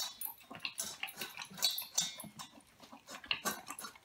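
Boxer dog eating dry kibble from a stainless steel bowl: irregular crunching and chewing, a couple of bites a second.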